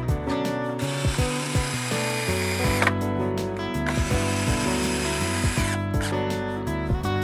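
Cordless drill/driver driving screws into plywood, running in two spells of about two to three seconds each, over background electronic music.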